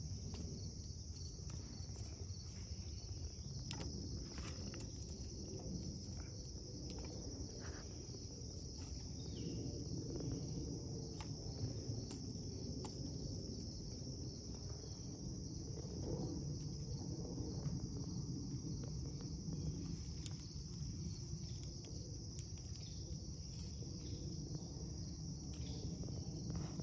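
Steady high-pitched insect chorus running without a break, over a low background rumble, with a few faint scattered taps.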